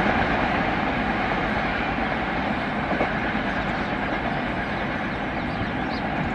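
An express passenger train with LHB coaches running away along the track: a steady rolling noise of wheels on the rails, slowly fading as it recedes.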